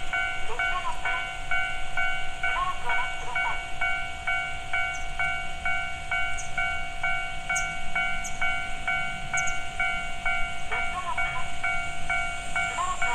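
Japanese railway level crossing's electronic warning bell ringing steadily, about three dings a second, the signal that a train is approaching.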